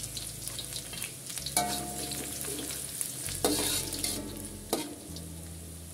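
Chopped garlic and shallots sizzling in hot oil in a wok, the first stage of a stir-fry where the aromatics are fried until fragrant. A metal spatula scrapes and clinks against the pan a few times as they are stirred.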